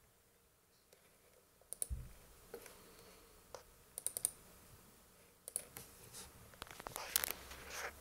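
Scattered light clicks and taps, coming in small clusters and busier near the end, with a soft low thump about two seconds in.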